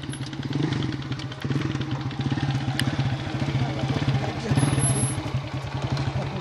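Motorcycle engine running steadily with a rapid, even pulse.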